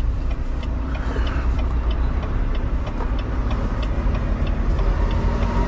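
Semi-truck's diesel engine running low and steady, heard inside the cab as the truck pulls forward slowly. A faint regular ticking about three times a second runs over it, and a steady low tone comes in about four seconds in.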